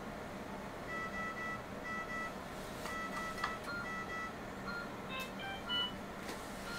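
Electronic beeping: from about a second in, a run of short two-tone beeps in quick pairs, then near the end a few brief beeps at shifting pitches, over a steady low equipment hum.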